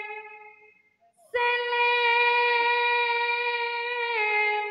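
Female singer holding long, steady sung notes into a microphone. One note fades out in the first second; after a short pause a new note starts sharply and is held for about three seconds, dipping slightly in pitch before it fades.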